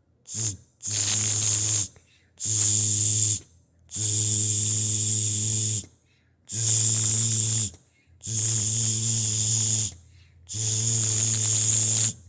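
A person imitating electric zaps and shocks with the mouth: one short burst, then six buzzing zaps of one to two seconds each, every one a hissing buzz over a low hum, with brief silences between them.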